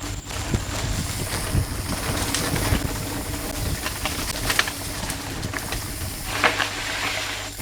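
Mountain bike ridden along a cross-country trail: tyres rolling on dirt with a steady low rumble, and sharp knocks and rattles from the bike several times.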